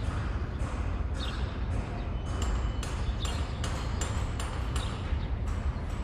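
Floor tiles being worked on during a renovation: a steady run of sharp taps, about two to three a second, each with a brief metallic ring. A steady low hum runs underneath.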